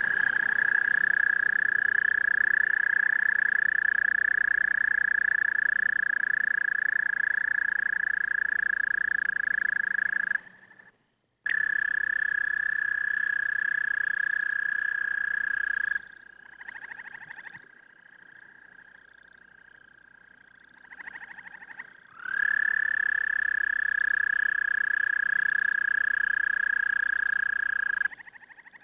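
American toads trilling: long, steady, high-pitched musical trills, the male's advertisement call. There are three loud trills lasting about ten, four and six seconds, with a fainter trill in the pause before the last one, which starts with a short rise in pitch.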